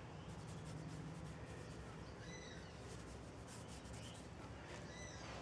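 Cloth rag rubbing wet polyurethane into a crack around a knot in a pine leg: faint, soft wiping strokes that work the finish into the crevices. Two faint short high chirps, about two seconds in and near the end.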